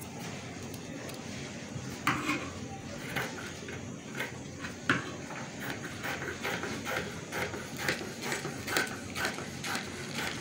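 Dressmaking shears cutting through white fabric: a run of crisp snips, scattered at first, then steady at about three a second from about six seconds in.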